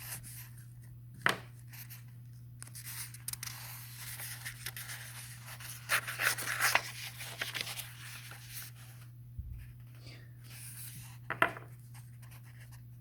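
Rustling and scraping handling noise, crinkly like paper, busiest in the middle, with a sharp click a little over a second in and another near the end, over a steady low hum.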